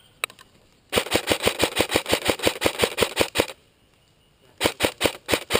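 Airsoft rifle firing a single shot, then a long rapid string of shots, about eight a second, and after a short pause a shorter string near the end.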